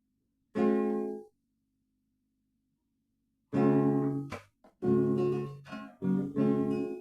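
Guitar chords strummed: one chord rings briefly about half a second in, then after a pause a run of chords begins, struck about once a second.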